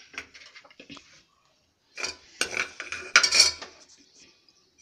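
Steel kitchenware clattering: a spoon and a steel plate clinking against a metal cooking pan. There are a few faint clinks at first, then a busier clatter of metal strokes from about two seconds in.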